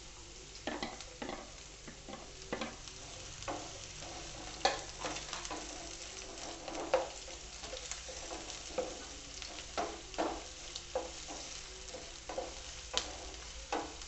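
Chopped onions and green chillies sizzling in hot oil in a non-stick frying pan, stirred with a wooden spatula that scrapes and taps against the pan about once or twice a second.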